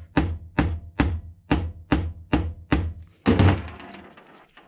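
Hammer tapping a roll pin punch in a quick, even series of about nine light strikes, driving a steel roll pin into a 3D-printed plastic part. About three seconds in comes a louder, longer clatter that fades away.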